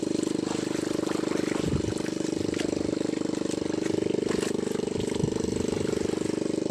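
A small fishing boat's engine running steadily with a fast, even pulse. A few light knocks sound over it, the sharpest about five seconds in.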